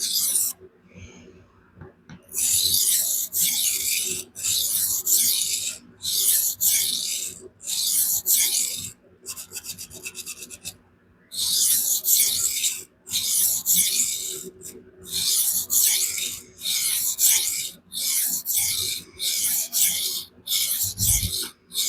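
Knife blade of Magnamax steel stroked edge-first across a coarse 400 grit vitrified diamond sharpening stone: more than a dozen hissing, rasping passes, each under a second with short pauses between. The passes are grinding steel off to set a slightly lower bevel and raise a burr.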